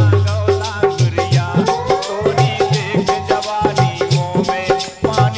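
Instrumental break of an Indian folk song: harmonium melody over regular hand-drum beats and tambourine jingles, with one note sliding slowly upward through the middle.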